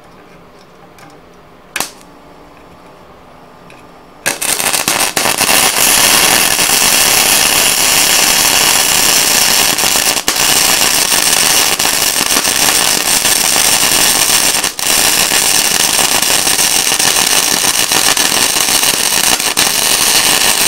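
Gasless flux-core MIG welding arc running as a bead is laid down a seam on steel plate, struck about four seconds in after a quiet start with one short click. It runs steadily with two very brief breaks in the middle, then stops right at the end.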